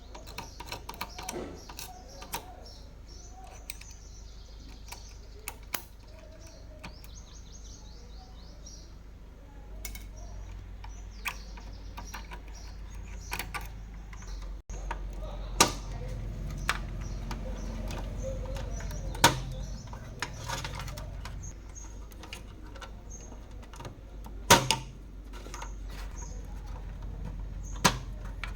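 Scattered sharp clicks and knocks of small parts and tools being handled during a repair, a few of them louder, over a low steady hum that grows stronger partway through.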